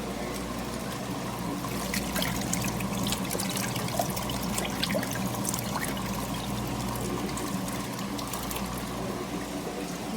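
Portable mini washing machine running: a steady motor hum under water splashing and trickling, with small drips and ticks throughout.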